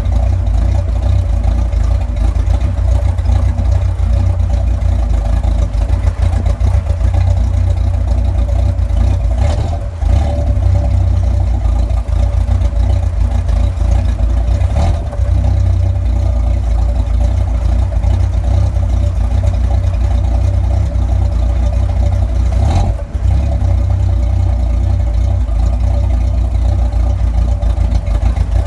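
Cammed Chevy 292 inline-six idling steadily, heard at its Flowmaster 40 muffler, with a deep, low exhaust note that dips briefly three times. It is still warming up from a cold start, and its carburettor is set far too lean, with the idle mixture screw out 8 turns instead of 2.5.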